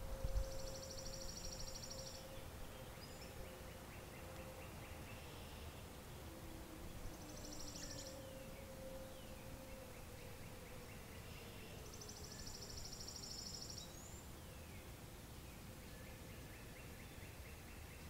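Songbirds singing short, rapid trills every few seconds over a faint, steady low tone from distant outdoor warning sirens winding down.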